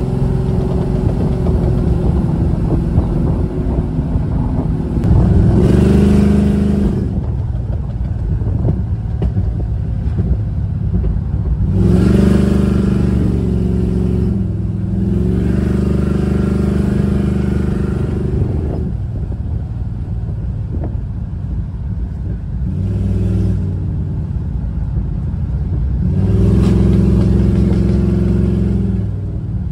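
1970 Dodge Charger R/T's V8 engine heard from inside the cabin while driving. It runs steadily and swells under acceleration about five times, the longest spell broken by a brief dip in the middle.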